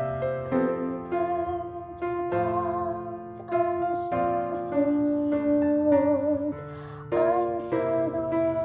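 Slow keyboard music in a piano sound, playing held chords that change about once a second under a melody line that wavers on its longer notes.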